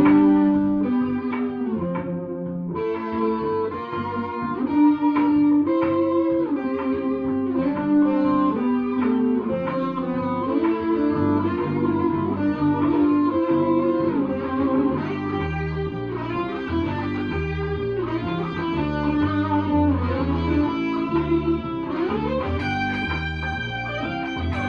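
Electric guitar playing a continuous line of single notes over a moving bass line, sliding up into higher notes near the end.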